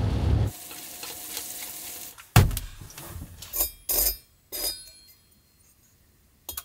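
Road and rain noise inside a moving van's cabin cuts off after half a second. Then a single knock, followed by a few crisp crunches of a knife cutting through a toasted hot sandwich.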